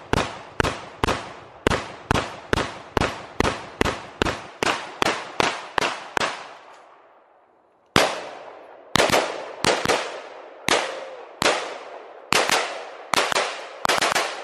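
Rapid semi-automatic gunfire, a steady string of about two to three shots a second, each with a short echo. It stops about six seconds in. After a gap of about a second and a half, a second, less even string of shots starts and runs to the end.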